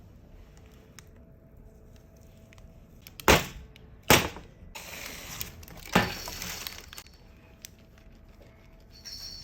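Three sharp knocks or clatters of kitchen items being handled, the first two close together and the third about two seconds later, with rustling between the second and third.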